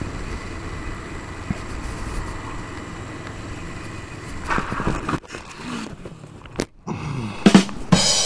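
Motorcycle riding noise, steady wind and engine, then, after a brief break, two loud crashing hits as the bike goes down onto cobblestones: a low-speed drop after the front wheel locked under hard braking.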